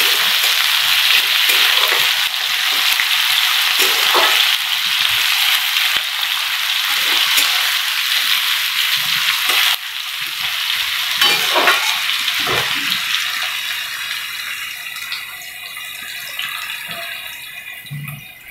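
Sliced potato and onion sizzling in hot oil in a wok, stirred with a metal spatula that scrapes and knocks against the pan now and then. The sizzle eases off gradually over the last several seconds.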